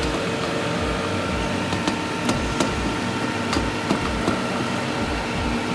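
NAVAC refrigerant recovery machine running in recovery mode, its compressor pulling the R-134a charge out of a small reach-in refrigeration system: a steady mechanical hum with a few faint clicks.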